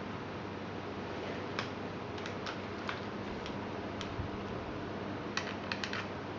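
Faint scattered clicks and taps of plastic and cable being handled, with a quick cluster of clicks near the end as a 3.5 mm cable plug is pushed into a headphone earcup, over a steady hiss and low hum.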